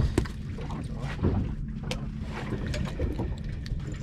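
Wind buffeting the microphone over a low steady hum, with scattered light knocks and clicks of handling on a small boat.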